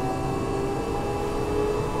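Tokyo Metro 8000 series chopper-controlled subway train running, heard aboard: motor whine rising slowly in pitch over a steady rumble of wheels on track as the train gathers speed.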